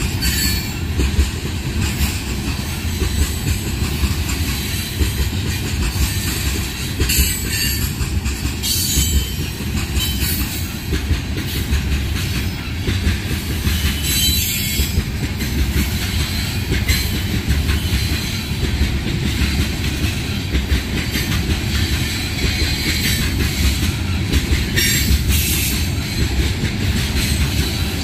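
Freight train of tank cars rolling past: a steady rumble of steel wheels on rail, with brief high wheel squeals a few times.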